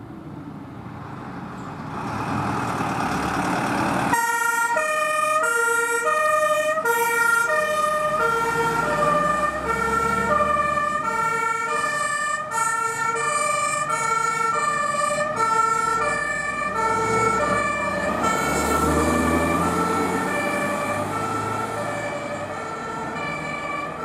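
An LF8/6 fire engine approaches, its engine noise growing, and about four seconds in its two-tone horn comes on. The horn keeps alternating a high and a low note as the truck drives on and slowly grows quieter.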